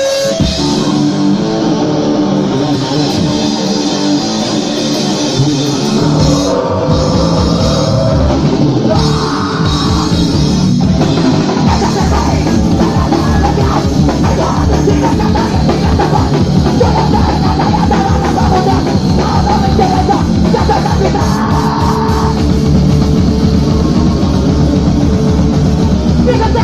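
Live heavy rock band playing fast, loud, distorted electric guitar with a drum kit. The full, driving drumming comes in about six seconds in.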